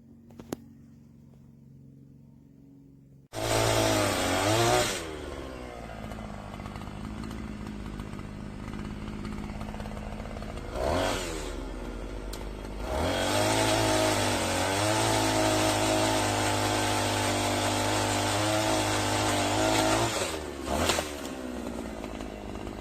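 Petrol engine of a FUXTEC FX-MT152E multi-tool bursts into life about three seconds in after a couple of faint clicks, and is revved and then settles lower. It is then revved up and held high for several seconds, with short throttle blips.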